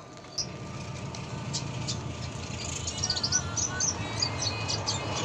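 Red siskin singing: quick, high chirps and twitters that come thicker from about a second and a half in. Under them, a low rumble starts just under half a second in and slowly grows louder.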